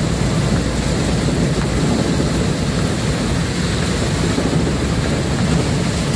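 Inside a moving jeepney's cabin in heavy rain: a steady, loud rumble of the diesel engine and tyres on the wet road, with rain hiss over it.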